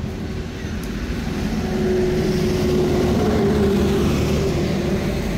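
A motor vehicle passing, its engine hum swelling to a peak through the middle and fading near the end.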